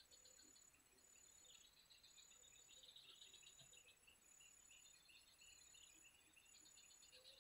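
Faint insect chorus: a high, even-pitched chirr in regular pulses about once a second, over a denser high trilling that swells and fades.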